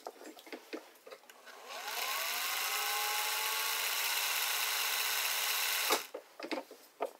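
Singer 401 sewing machine, top cover off and freshly oiled, running at speed: its electric motor whines up to speed and the exposed mechanism runs steadily for about four seconds, then stops suddenly. Light clicks of parts being handled come before and after.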